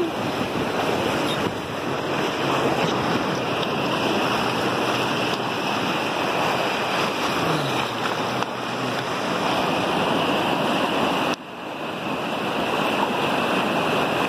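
Whitewater rapids rushing steadily, a constant wash of churning river water. The sound drops out briefly about eleven seconds in, then resumes.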